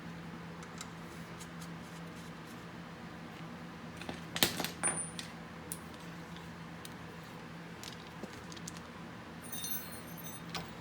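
Metal hand tools and hardware clinking and tapping against steel parts, with one louder clink about four and a half seconds in and a brief metallic ring near the end, over a steady low hum.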